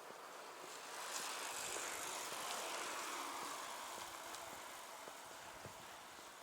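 A vehicle passing by: a swell of road noise that rises about a second in, peaks, and fades away over a few seconds.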